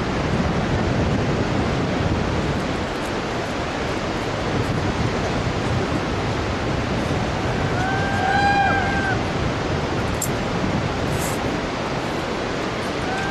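Steady rushing of the Bhote Koshi river's rapids far down in the gorge, with some wind on the microphone. About eight seconds in, a short pitched call rises and falls over about a second, and a shorter one comes near the end.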